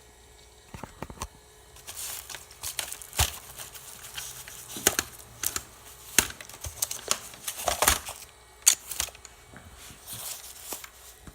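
Macintosh Classic's internal hard disk seeking during startup: irregular sharp clicks and crackly chatter in uneven bursts, beginning about a second in and dying away near the end.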